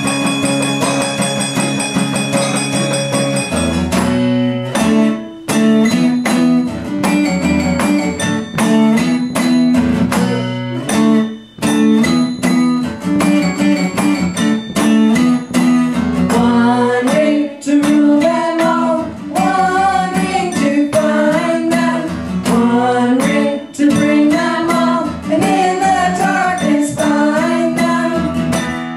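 A chord is held for the first few seconds, then an acoustic guitar is strummed in a steady rhythm. A voice comes in singing the melody about halfway through.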